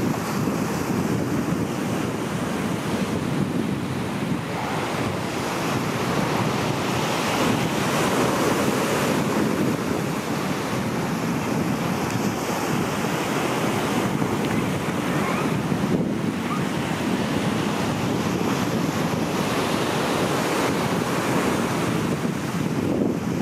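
Ocean surf breaking and washing over the rocks in a steady rush, with wind on the microphone.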